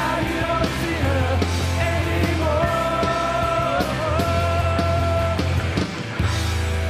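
Punk rock band playing: distorted electric guitars, bass and drums, with a voice holding long notes over them. About six seconds in the drums drop out and a steady sustained drone takes over.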